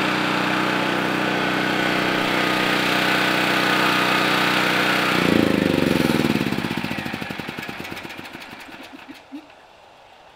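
Generac open-frame portable generator engine running steadily under its loud exhaust, then switched off about five seconds in. It spins down with falling pitch and fading pulses and coasts to a stop a little after nine seconds.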